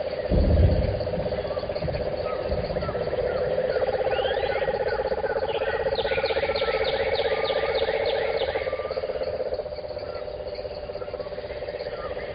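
Birds chirping and singing over a steady, fast-pulsing trill of insects, with one bird running a quick series of repeated notes past the middle. A brief low thump comes about half a second in.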